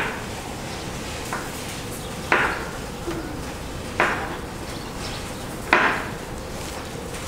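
Knife knocking on a cutting board as food is cut by hand, sharp single knocks one to two seconds apart.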